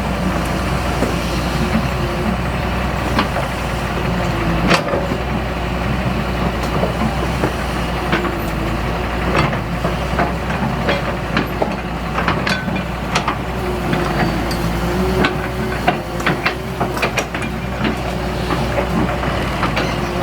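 Heavy diesel excavator engine running steadily, with scattered sharp knocks and clanks from digging and moving earth.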